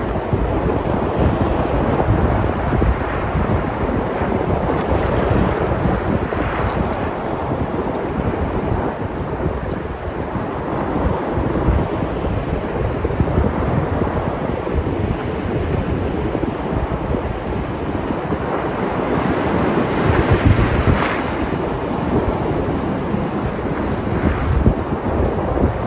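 Sea surf: waves washing in and breaking in slow swells, with wind buffeting the microphone.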